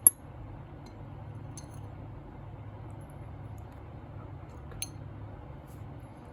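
Sharp popping clicks of slime bubbles: a loud one right at the start, then fewer and fainter ones about one and a half and five seconds in, over a steady low hiss.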